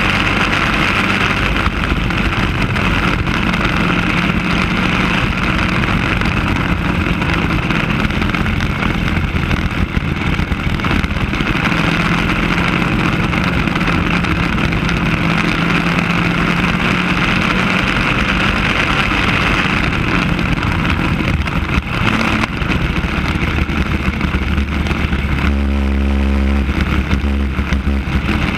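Racing kart engine running hard at speed, its pitch rising and falling through the lap, over steady wind rush on the onboard microphone. About 25 seconds in it drops to a deeper, lower note for a couple of seconds.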